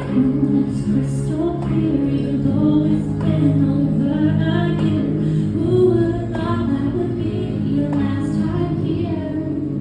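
Female lead vocalist singing a pop song live over instrumental accompaniment with sustained low chords.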